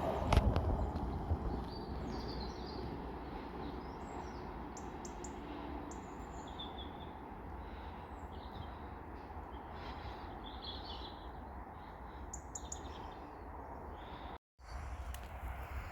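Small birds chirping in short, scattered calls over a steady low rumble, with a single thump just after the start and a brief dropout to silence near the end.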